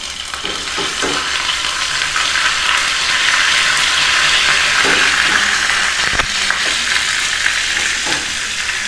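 Curry leaves and cumin seeds sizzling in a spoonful of hot oil in a small pan, a tadka for tempering chutney. The hiss builds over the first second or two and then holds steady, with one soft knock about six seconds in.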